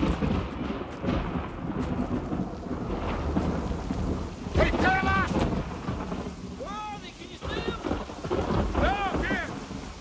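Steady heavy rain with a rumble of thunder right at the start. About halfway through and again near the end come several short, high-pitched cries that rise and fall.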